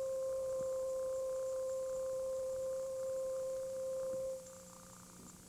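A single held electronic tone, pure and steady, from the film's electronic music score; it fades out a little over four seconds in, leaving faint hiss.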